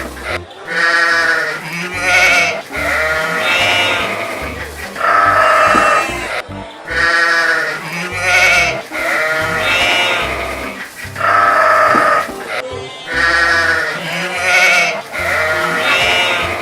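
Farm animal bleating: a run of wavering calls that repeats as a loop about every six seconds, over background music with a steady beat.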